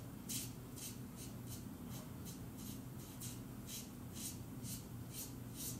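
Colouring strokes rubbing back and forth on paper, a regular scratching of about two or three strokes a second over a low steady hum.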